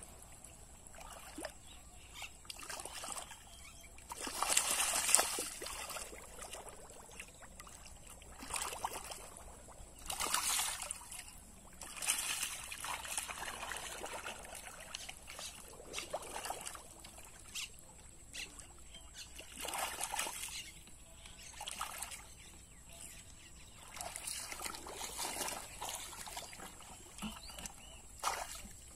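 Shallow muddy water splashing and sloshing in irregular bursts as a person wades and grabs at a fish by hand. The biggest splash comes about four to five seconds in, with others around ten seconds and twenty seconds.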